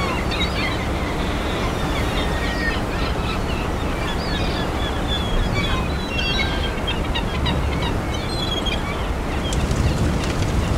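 Many birds calling in short chirps over a steady low noise of wind and sea, with a few sharp clicks near the end.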